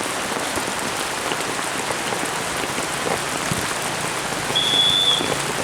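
Steady rain falling, with one short whistle blast near the end.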